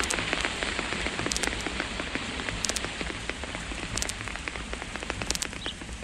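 Rain sound effect: a steady pattering of raindrops, as on a leaf overhead, growing slowly quieter.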